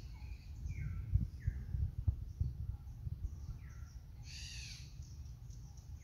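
Wild birds calling: a few short, downslurred whistled notes and, about four seconds in, one harsh, raspy call. Under them is a low rumble with a couple of dull knocks.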